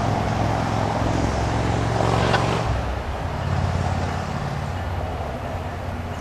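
Loram rail grinder working the track, with a steady low diesel drone under a harsh rushing noise from its grinding stones on the rail. There is a brief crack a little over two seconds in, and the rushing noise eases slightly after about three seconds.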